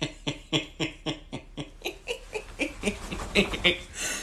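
A man laughing hard and helplessly, in short breathy bursts about three a second, with a breathy noise near the end.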